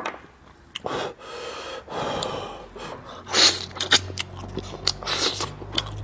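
A person breathing hard and sniffing while eating spicy food, with two loud breathy inhales about three and five seconds in, and small clicks of chewing and utensils in between.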